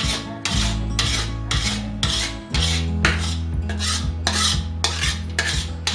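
Metal spoon scraping across the bottom of a metal kadhai in quick rhythmic strokes, about two a second, stirring milk boiled down thick into khoya (mawa). Fast stirring at this stage keeps the thickened milk from sticking and burning.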